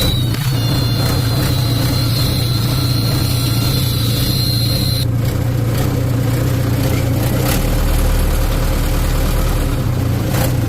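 Case 1840 skid steer's 4BT Cummins four-cylinder diesel running steadily just after starting. A high thin whine rides over it for the first five seconds or so and then stops, and a deeper low drone joins for about two seconds near the end.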